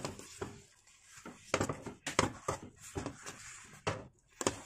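A utensil stirring thick, cooked rice-flour dough in a metal pot, with irregular knocks and scrapes against the pot's side.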